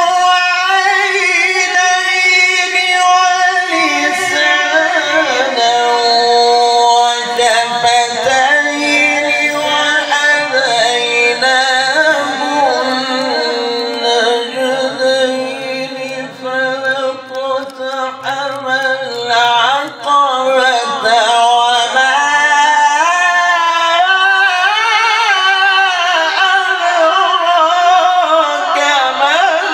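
A male voice reciting Quranic verses in a melodic tajwid style, holding long notes that waver and turn in pitch. The voice drops lower and breaks up for a few seconds around the middle before the long notes resume.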